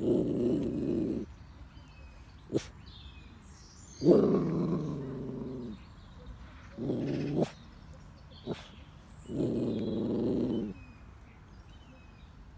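A dog giving four low growls, each lasting about a second, a few seconds apart. Two short sharp clicks fall in the gaps between them.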